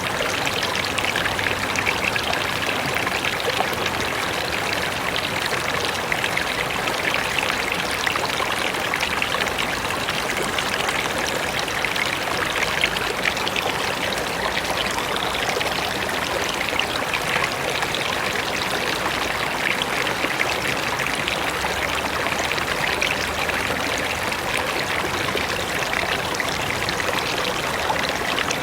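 Mountain river rushing and splashing over rocks: a steady, dense water noise with constant small bubbling splashes.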